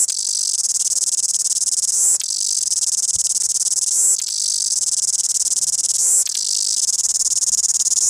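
A cicada singing close up: a loud, continuous high-pitched buzz, broken about every two seconds by a brief dip with a click.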